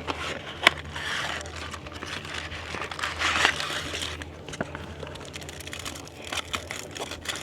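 Plastic crinkling and rustling, with scattered sharp clicks and crackles, loudest in the first half.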